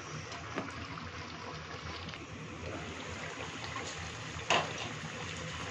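Fish curry simmering and bubbling gently in a karai, with a small click early on and one sharp knock, like a utensil against the pan, about four and a half seconds in.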